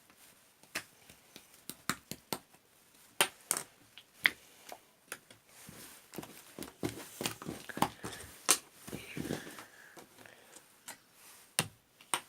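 A series of irregular sharp clicks and taps, a few of them loud, at uneven intervals.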